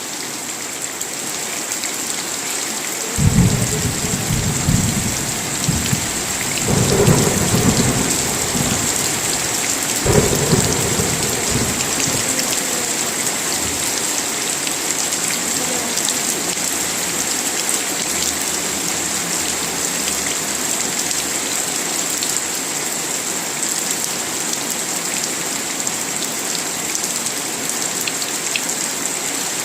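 Steady heavy rain with a rolling peal of thunder that rumbles in about three seconds in, swells again twice, and fades out by about twelve seconds, leaving the rain alone.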